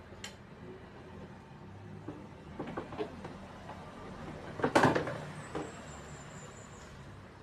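A few knocks and clatters of hard objects being handled, the loudest a sharp knock nearly five seconds in, followed briefly by a faint high whine.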